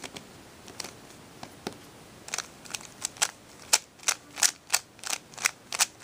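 Plastic 3x3 Rubik's cube layers being turned by hand, clicking as they snap into place while the R' D' R D corner-flipping algorithm is repeated. There are a few scattered clicks at first, then from about two seconds in a quick, even run of about three clicks a second.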